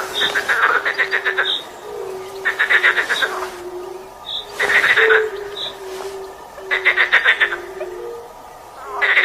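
Frogs calling: a rattling croak lasting about a second, repeated roughly every two seconds, over a steady string of short low hooting notes.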